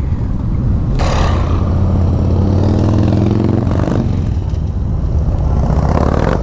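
Motorcycle engines running as bikes ride slowly in a group, with a deep, steady engine note. From about two seconds in, one engine's pitch rises as it revs up, then settles back.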